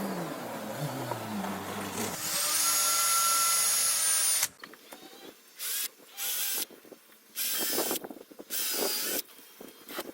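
Power drill running: a steady high whine for a couple of seconds, then a series of short trigger bursts.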